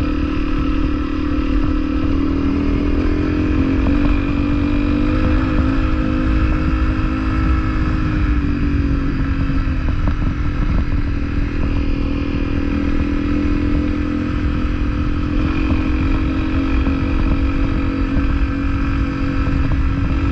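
Honda CRF250L trail bike's single-cylinder engine running steadily under way at an even pace, over a low rumble.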